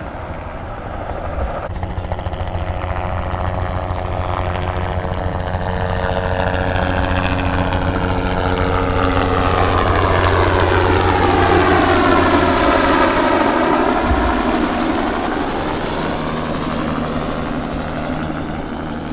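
Spray helicopter making a low pass: steady rotor chop with a turbine whine that grows louder toward the middle, then falls in pitch as it goes past and fades a little.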